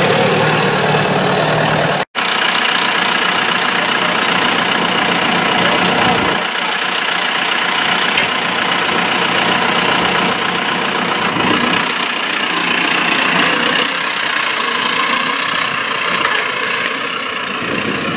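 A farm vehicle's engine running steadily as it carries riders along. The sound cuts out for an instant about two seconds in.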